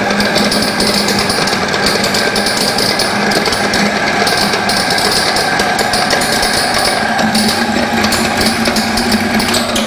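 Maksindo AGR-GRP 150 wet-and-dry grinding mill, belt-driven by an electric motor, running loud and steady while it grinds soaked soybeans into a wet slurry, a continuous machine clatter with a high whine.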